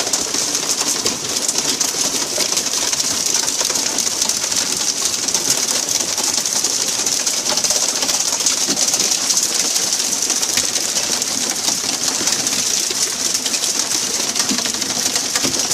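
Steady, loud hissing rush of water spray and splashing around a pole-and-line tuna boat as fish are hauled aboard.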